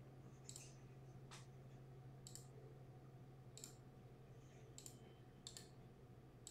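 A handful of faint, irregular clicks from a computer being worked while the teams are entered into an online randomizer, over a low steady hum.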